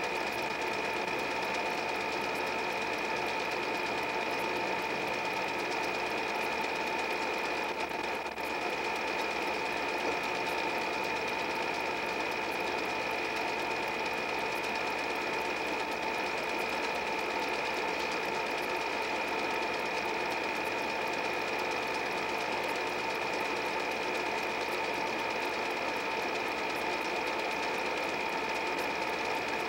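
8 mm film projector running steadily: a continuous mechanical whir with a steady high hum, the only sound on this silent home movie as it is played back.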